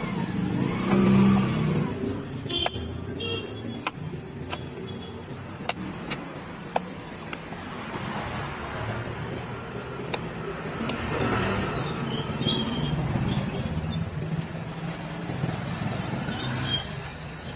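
Street traffic running and passing, swelling loudest about a second in and again midway, with a handful of sharp clicks and taps of a knife on a wooden chopping block.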